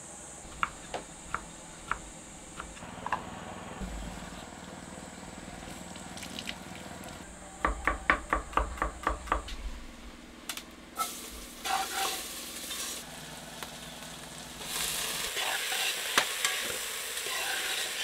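Metal spoon stirring chopped vegetables in a metal cooking pot, clinking and scraping against the pot while the food sizzles. A quick run of about ten clinks comes in the middle, and the sizzling grows louder near the end.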